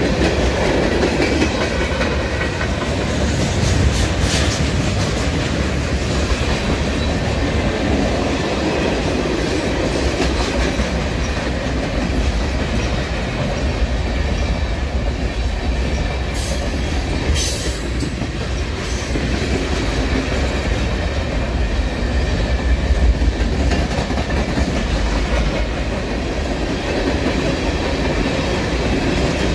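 Freight cars (tank cars, covered hoppers and refrigerated boxcars) rolling past close by: a steady rumble of wheels on rail, with a few brief sharp high sounds about 4 and 17 seconds in.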